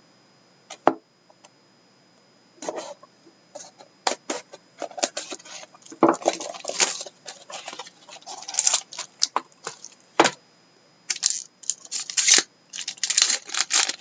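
Irregular crinkling and tearing of plastic wrapping and packaging as a sealed box of 2011-12 Upper Deck Ultimate hockey cards is opened, with a few sharp clicks and snaps.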